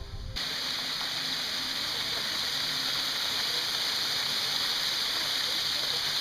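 Steady rushing of falling water from a waterfall, an even hiss that starts abruptly just under half a second in.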